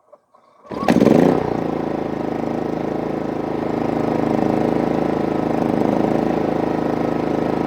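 GENMAX GM3500iAED inverter generator's 145cc engine, running on gasoline, electric-starting from its push button: a few faint clicks, then it catches under a second in with a brief loud surge and settles into steady running.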